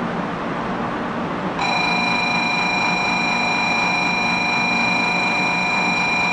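A steady, high-pitched warning signal with several pitches sounding together starts abruptly about a second and a half in and cuts off about five seconds later, over the steady background noise of a Shinkansen platform.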